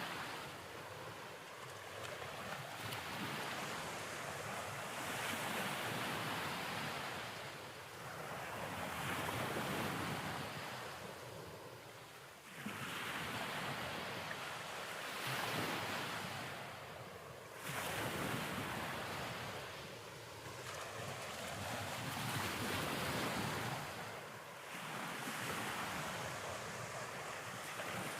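Rushing noise like waves breaking on a shore, swelling and fading every few seconds.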